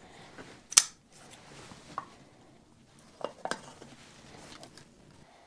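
A folding pocket knife handled and opened, with one sharp click near the start, then smaller clicks, taps and scraping as the blade works at the top of a plastic engine-oil jug to open it.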